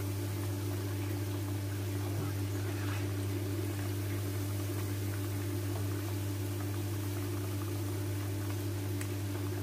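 Tofu cubes sizzling steadily in hot oil in a frying pan, with a few faint knocks of the spatula against the pan, over a steady low hum.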